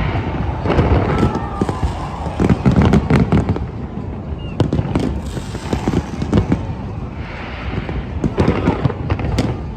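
Large fireworks display: shells bursting in quick, irregular succession, with deep bangs and sharper crackles.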